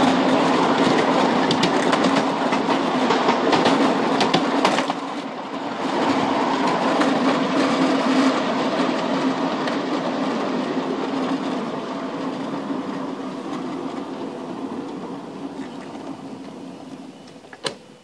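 Miniature 5-inch-gauge battery-electric locomotive running along the track: a steady electric motor hum over wheel-on-rail rumble, with scattered clicks of the wheels over rail joints. It gets gradually quieter over the last several seconds, and two sharp clicks come near the end.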